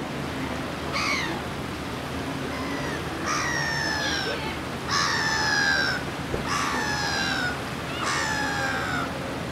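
A bird calling five times, each call a short note sliding slightly down in pitch, spaced about a second and a half apart, over a steady background hiss.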